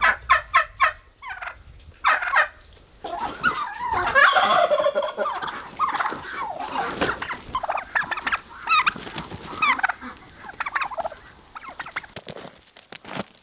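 Several domestic turkey toms gobbling, one quick rattling run of calls right at the start and then many overlapping gobbles, with a flurry of wing flapping about halfway through.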